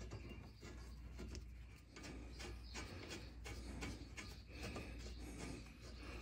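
Quiet: a steady low hum with a few faint light taps and scrapes as a brake caliper is handled and seated over the rotor by hand.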